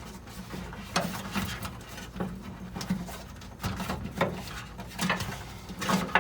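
Scattered clicks and knocks, irregularly spaced about one or two a second: a wiring harness being handled and pressed down into the metal retaining tabs on a Porsche 914/6 chassis.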